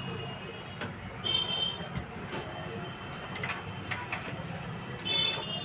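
Scattered light clicks and knocks of computer parts and cables being handled, over a steady background hum. Two short high-pitched toots come through, about a second in and near the end.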